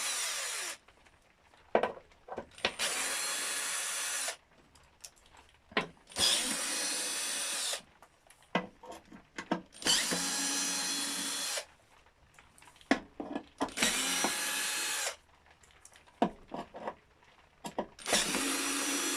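An electric screwdriver backing out screws in short runs of one to two seconds, about every three to four seconds. Small clicks and taps fall between the runs.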